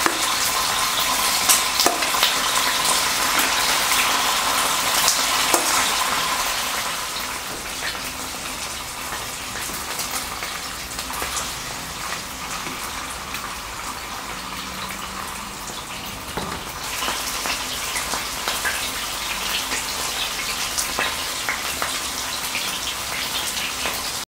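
Chicken pieces sizzling and crackling in hot oil as they pan-fry in a nonstick frying pan. The sizzle is loudest for the first several seconds, then settles a little lower.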